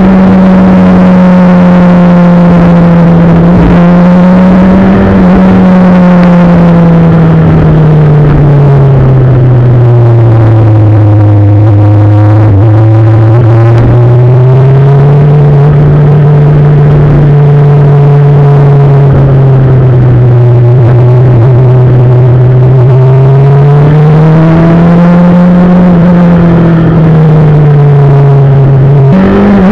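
Motorcycle engine running steadily on the road, loud and close, its pitch sinking and climbing slowly as the throttle eases and opens through the bends.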